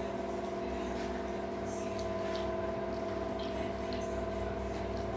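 A steady machine hum with a constant whining tone over a low rumble, and a few faint clicks.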